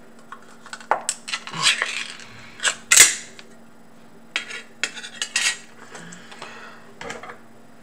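Small metal dog food can being opened by its pull-tab lid: a run of metallic scrapes and clicks as the lid is peeled back, the loudest a sharp snap about three seconds in, then more clinks of the tin being handled.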